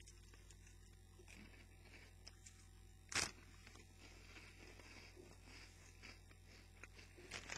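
Faint chewing of crunchy corn-snack onion rings, with one short, louder crackle about three seconds in.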